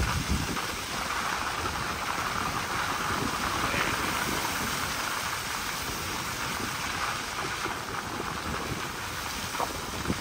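Car driving along a wet, mud-covered road: a steady hiss of tyres on the wet surface, with engine and road noise underneath.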